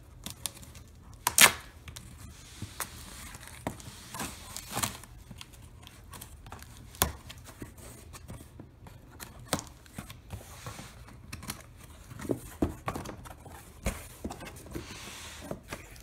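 Packing tape on a cardboard box being cut with scissors and pulled off, then the cardboard flaps rustling and knocking as the box is opened, a string of short rips, scrapes and clicks. The loudest comes about a second and a half in.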